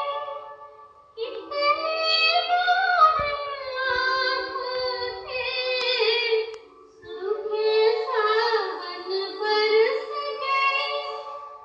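A high-pitched voice sings a song with music, in long melodic phrases. It pauses briefly about a second in and again about seven seconds in.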